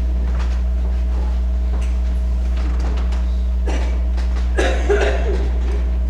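Steady low electrical hum, with scattered light clicks and a brief muffled noise about five seconds in.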